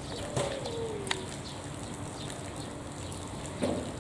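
A bird cooing: one soft falling coo about half a second in, then a shorter call near the end, over steady outdoor background noise.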